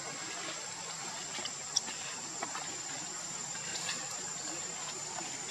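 Steady outdoor background hiss with a thin, even high tone over it and a few faint scattered clicks.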